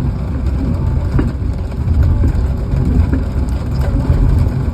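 Log loader's engine running steadily with a heavy low rumble, with a few light knocks over it and heavy rain falling.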